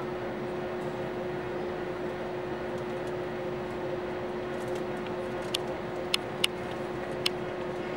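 Steady cabin hum inside an Airbus A321neo on the ground before take-off: a rush of ventilation air with one steady mid-pitched tone underneath. Four sharp clicks in the second half.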